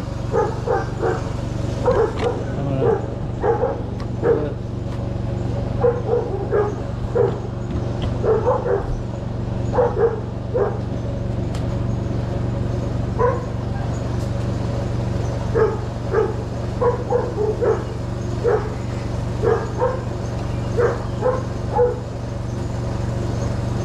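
A dog barking over and over in short single barks, irregularly spaced, over a steady low hum.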